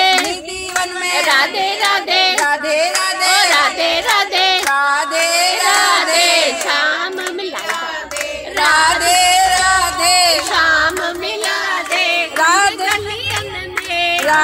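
A woman singing through a handheld karaoke microphone with a built-in speaker, with hand clapping along.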